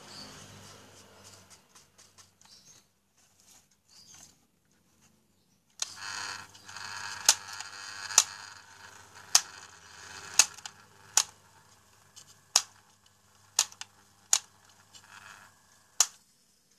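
New replacement electric fan motor being test-run on mains power: it comes on about six seconds in with a steady low hum, sharp clicks come about once a second while it runs, and it cuts off near the end.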